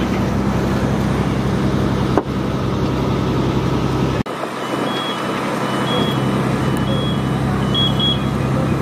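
Fire engine's diesel engine idling with a steady hum. After a cut about four seconds in, the engine hum drops away, leaving outdoor noise with a faint two-note electronic beep repeating about once a second.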